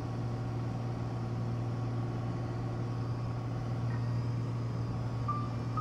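Steady drone of propeller fighter-plane engines, a deep even hum, with a higher tone coming in near the end.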